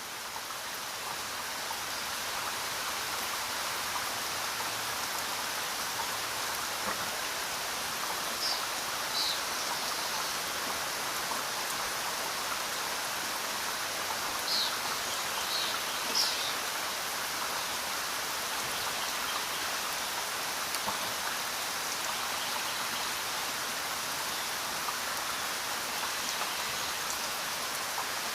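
Steady rain falling, an even dense hiss that swells up over the first couple of seconds and then holds level. A few short high chirps come in the middle.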